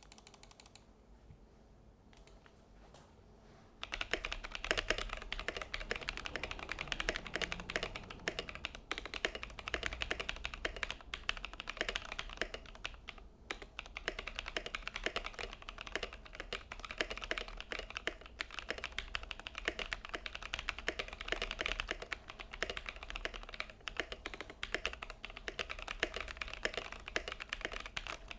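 Typing on a YMDK Melody 96 acrylic-case mechanical keyboard with lubed AEBoards Naevy switches and PBT keycaps. Fast, continuous keystrokes start about four seconds in, with a brief pause around the middle.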